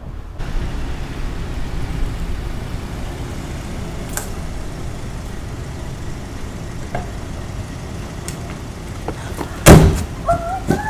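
A car door slams shut just under ten seconds in, over a low steady rumble, and right after it a girl's excited high voice begins.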